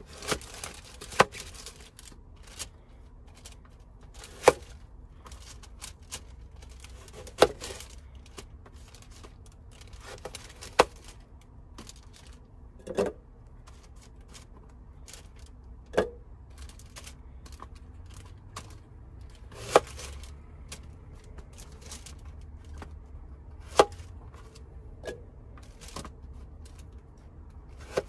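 Knife cutting fruit, the blade knocking sharply on the cutting surface every few seconds.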